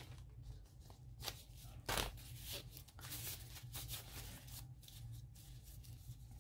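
Light rustling and scattered soft clicks of gloved hands handling paper and a stamp that clings to the glove, with one sharper tap about two seconds in.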